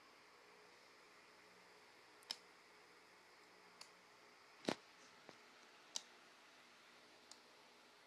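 Near silence broken by about six scattered short, sharp clicks, the loudest a little before the middle.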